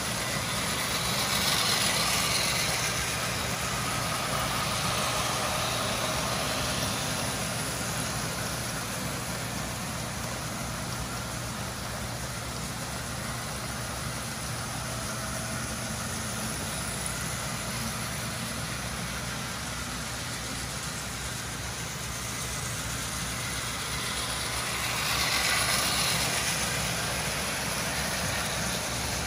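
Several vintage electric tinplate toy trains running on three-rail tinplate track: a steady rumble of metal wheels and motors on the rails. It grows louder as trains pass close by, about two seconds in and again near the end.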